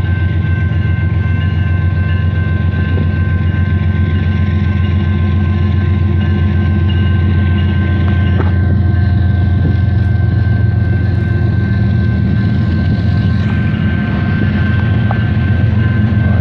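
Diesel locomotives at the head of a CP Rail coal train approaching slowly, their engines running with a deep steady drone and a thin steady whine over it; it grows a little louder in the second half as the units draw near.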